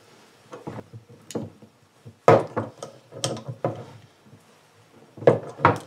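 Hand tools and metal pipe fittings knocking and clattering on a table as they are handled and set down: a scattering of sharp knocks, the loudest about two seconds in.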